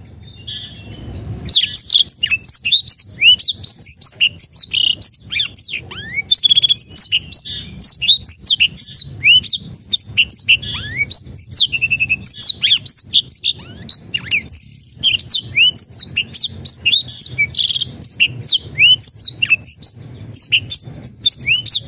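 Black-throated canary singing a long, fast, continuous song of rapid high chirps and downward-sweeping notes. It starts about a second and a half in after a short pause and breaks off briefly about two-thirds of the way through.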